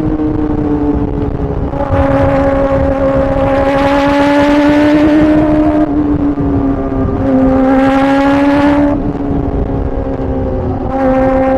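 Kawasaki ZX-4RR's inline-four engine running at high revs, its pitch holding nearly steady. The note swells as the throttle opens about two seconds in and again about seven seconds in, and eases back in between, over steady wind noise.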